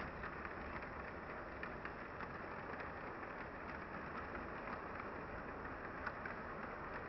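Model train of coal hopper cars running along the layout's track: a steady rolling rush from the small metal wheels, with many faint irregular clicks as they pass over rail joints.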